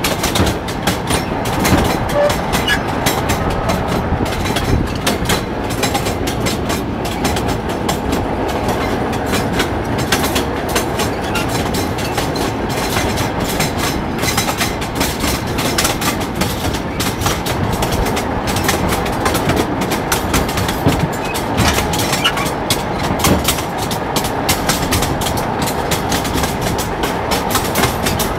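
Rail draisine running along the track, its wheels clattering over the rail joints in a continuous stream of clicks over steady running noise.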